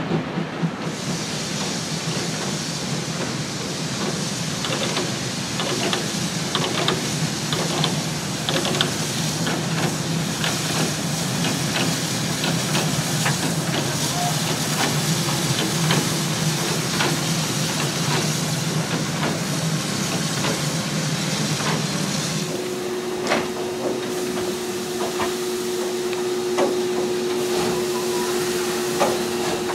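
Steady rushing noise of a moving train with a low steady hum. About three-quarters of the way in it changes to a standing steam locomotive, 01 533, hissing steam with a steady higher hum, and scattered clicks.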